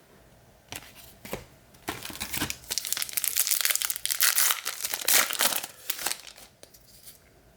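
Plastic wrapper of a baseball card pack being torn open and crinkled: a few sharp crackles, then about four seconds of dense crinkling that stops shortly before the end.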